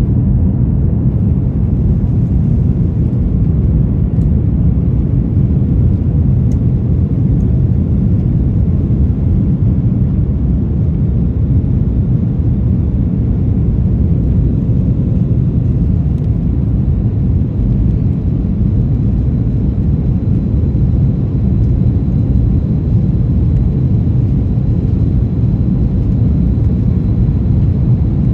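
Airbus A330-200 cabin noise during the climb after takeoff: a steady, loud, low rumble of the jet engines and airflow heard from a window seat, with no change in pitch or level.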